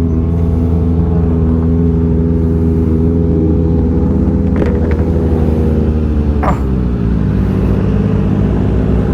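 Kawasaki ZX6R inline-four motorcycle engine running steadily at low revs, its pitch sinking about six and a half seconds in as the revs drop. A couple of brief sharp noises come about four and a half seconds in and again as the pitch falls.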